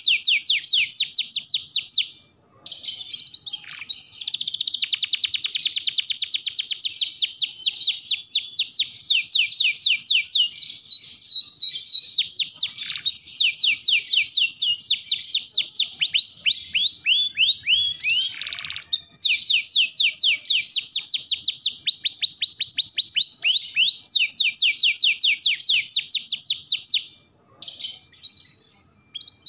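Domestic canary singing a long, fast song of rapidly repeated down-slurred notes in rolling trills. The song pauses briefly about two seconds in and breaks off into scattered notes near the end.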